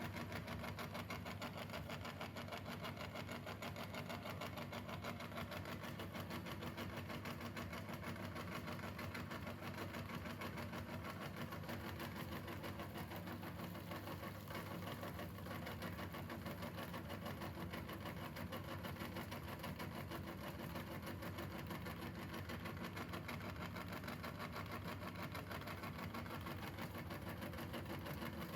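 Electric meat grinder running steadily with a constant motor hum.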